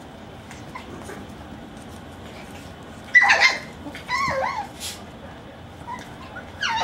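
Eight-week-old Maltipoo puppies yipping and barking in short bursts while they play. The loudest burst comes about three seconds in, another follows about a second later, and a short one comes near the end.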